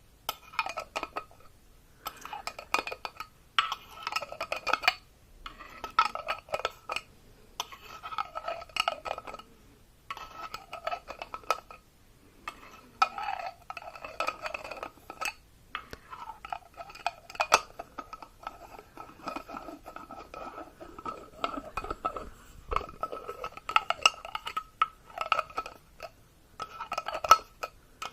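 A metal utensil clinking and scraping against a ringing vessel, such as a cup or bowl. It comes in repeated bouts of one to two seconds with short pauses, and each bout carries the same steady ring.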